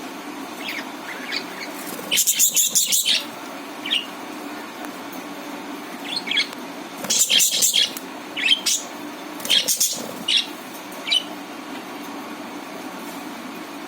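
Budgerigars chirping: short, high single chirps scattered through, with two loud runs of fast, harsh chatter, about two seconds in and again about seven seconds in.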